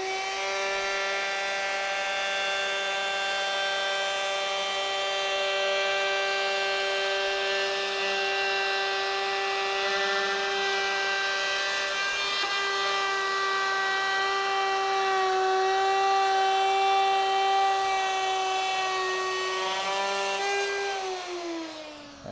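Handheld router running at full speed with a steady high whine while its 3/4-inch pattern bit cuts a rabbet across the end of a board for a breadboard tenon. Near the end the motor is switched off and winds down, its pitch falling.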